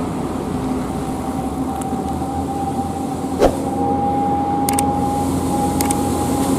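Heavy truck's diesel engine running steadily under load, with a steady high whine over the rumble. A sharp click comes about halfway through, and a few faint short ticks follow.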